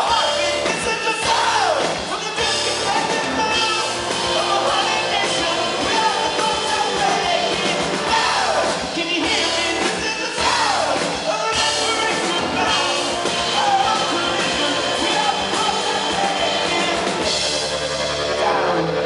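Live rock band playing loudly, with electric guitars, drums and a male lead singer, heard from the crowd.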